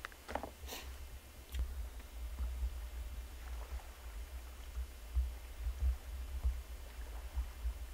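Wind buffeting the microphone as a low, uneven rumble, with a few handling clicks and rustles in the first second.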